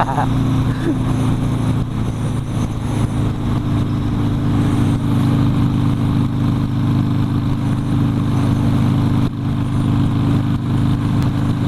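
Harley-Davidson Sportster's V-twin engine running at a steady cruising pace, under wind rush, with a brief dip in the engine note about nine seconds in.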